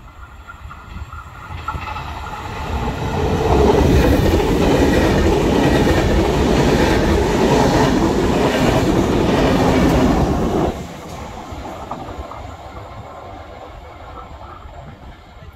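Vivalto double-deck regional train, drawn by an E.464 electric locomotive, passing through at speed with a rush of air and wheels clattering on the rails. The noise swells over about two seconds, holds loud for about seven seconds, then drops off suddenly to a low rumble.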